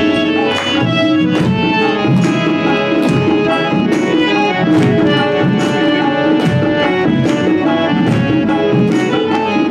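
Instrumental break in a devotional song: a steady percussion beat under sustained melody notes, with no singing.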